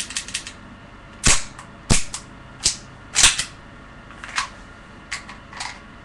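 Airsoft pistol firing about seven sharp shots at uneven intervals, the loudest in the first few seconds, after a quick run of small mechanical clicks from the gun at the start.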